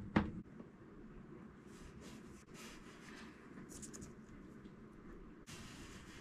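Butyl tape being peeled off its paper backing and pressed around the rim of a sink: faint rustling and scratching of tape and backing paper, with a short knock at the very start.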